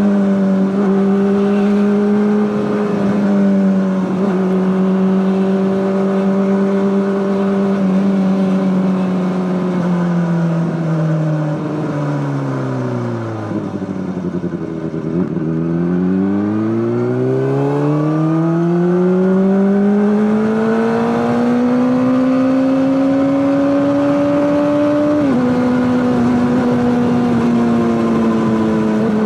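Honda CBR600RR inline-four engine running through an Akrapovic exhaust. The engine note holds steady for about ten seconds, falls smoothly to a low pitch, then climbs steadily again, with a short step down in pitch near the end, like a gear change.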